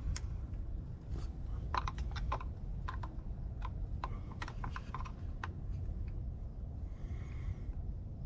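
Pliers working a spring clip off a rubber vacuum hose on the engine, giving irregular clusters of sharp clicks over a low steady rumble.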